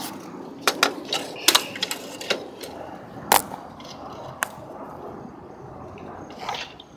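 Irregular sharp clicks and knocks from a window insect screen being moved aside and a phone bumping against the window frame, in the first four and a half seconds, then quieter.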